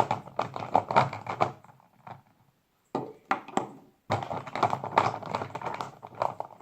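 Hands rummaging through a pile of small items, a busy run of clicking and clattering, a short pause with a few single clicks, then more rummaging.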